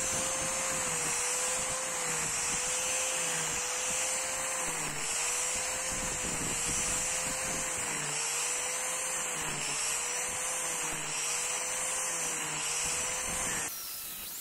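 Angle grinder with a chain carving disc running and cutting into wood: a steady motor whine that sags briefly in pitch now and then as it is pushed into the wood, over the rasp of the chain teeth. It cuts off abruptly near the end, giving way to a steady hiss.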